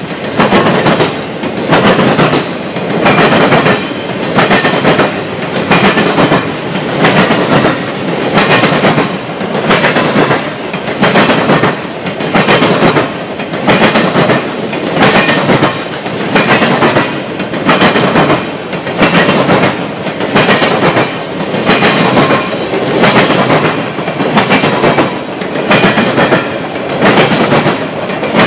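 Triple Crown RoadRailer train rolling past, its trailers' steel wheels clattering on the rails in a steady clickety-clack. The clatter swells about every two seconds as each trailer's wheel set goes by.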